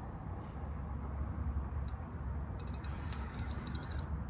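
Fishing reel clicking while a heavy hooked carp is played: a few single sharp ticks, then quick runs of ticks near the end, over a steady low rumble.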